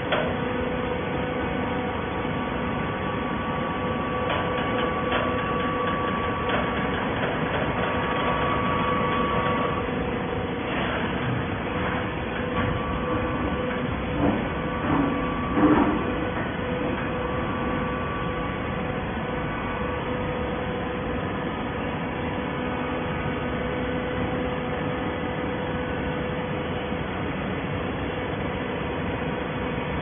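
Hydraulic baler running: a steady mechanical hum from its hydraulic power unit, with a higher whine that cuts in and out and a few clanks about halfway through.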